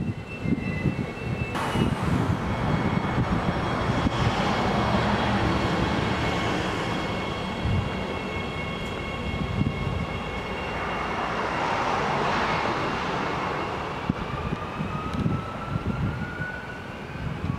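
Bombardier 4000-series electric multiple unit pulling away from the station: rumble of wheels on the rails and the whine of its electric drive, with one tone climbing steadily near the end as it gathers speed.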